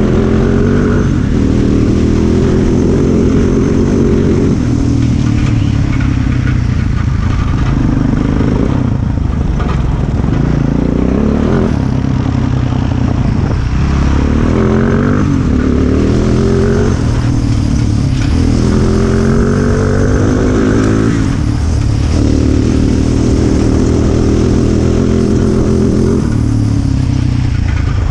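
Single-cylinder four-stroke ATV engine under way, repeatedly revving up in pitch as the quad accelerates across rough ground, then dropping back.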